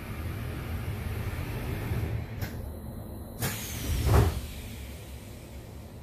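Sliding passenger doors of an E721-series electric train closing: a sharp click about two and a half seconds in, another a second later followed by a hiss that falls in pitch, then the loudest sound, a heavy thud as the door leaves meet just after four seconds. A steady low hum from the stopped train runs underneath.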